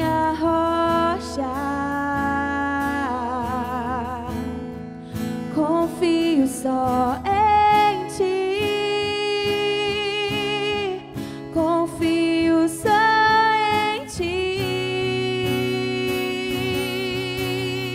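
A woman singing a slow worship song to acoustic guitar accompaniment, holding long notes with vibrato.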